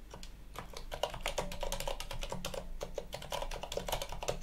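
Typing on a computer keyboard: a quick, irregular run of key clicks.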